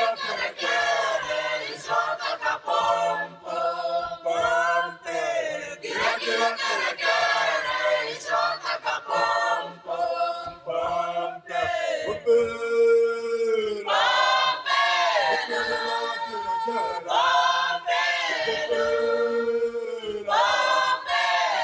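Choral music: a group of voices singing together, with some notes held for a second or two.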